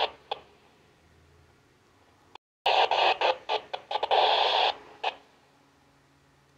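Yaesu FT-60 handheld radio receiving UHF military satellite (satcom) traffic through its speaker. A noisy transmission comes through for about two and a half seconds in the middle, with only faint hiss before and after it.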